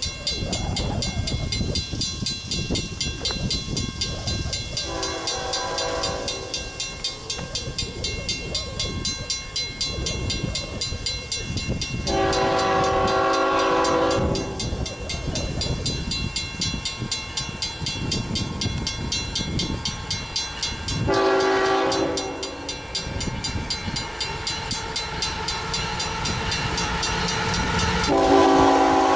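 CSX freight locomotive horn sounding the grade-crossing signal, long, long, short, long, its chord of several tones coming as the train approaches. The locomotive bell rings steadily throughout over the low rumble of the diesel engines.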